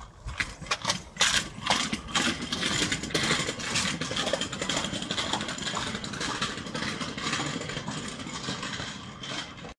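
Kick scooter's small wheels rolling over concrete paving tiles: a steady rolling noise with sharp clicks, thickest in the first couple of seconds, that slowly fades as the scooter moves away.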